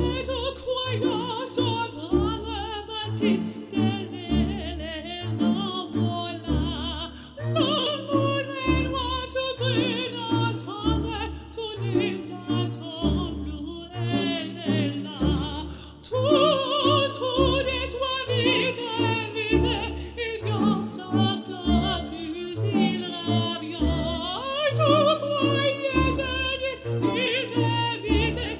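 Background music: a voice singing long operatic phrases with a wide vibrato over an orchestral accompaniment with a steady bass line.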